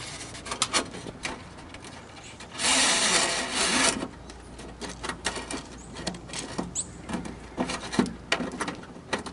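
Cables in plastic sleeves being pushed through a drilled hole in the car body, rubbing and scraping against its edge, with scattered clicks and one longer, louder rasping scrape about three seconds in.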